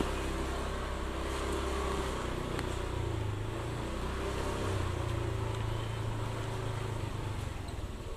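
Motorcycle engine running under way, with road and wind noise. The engine note steps up about three seconds in, and the sound drops off near the end as the bike slows.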